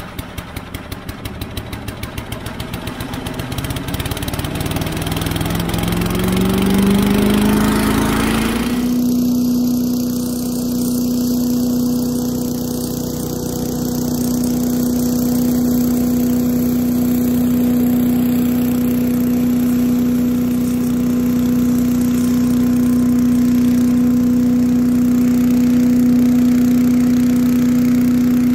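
8 hp Little Wonder leaf blower's single-cylinder engine, just started on choke, speeding up over several seconds with a steadily rising pitch to full throttle. After a cut it runs steady at full speed, a high steady tone, as the tractor-mounted blower clears leaves.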